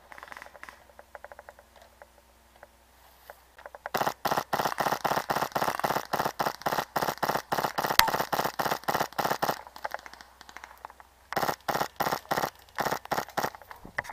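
Airsoft guns firing rapid strings of shots, about five a second, from about four seconds in to nine and a half, then again from about eleven and a half seconds to the end.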